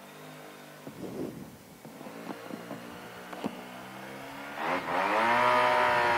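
Motorcycle engine running steadily at low revs while riding, then revving up about four and a half seconds in. It holds a loud, high pitch and cuts off suddenly near the end.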